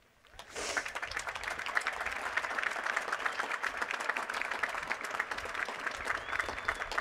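A large crowd applauding, starting about half a second in and quickly building to dense, steady clapping, with a brief high whistle near the end.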